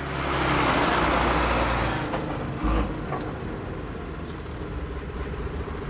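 Schlüter Super 1250 VL tractor's straight-six diesel running under load while its rotary power harrow works through stubble. A broad rushing noise is loudest in the first two seconds, then eases to a steadier engine sound.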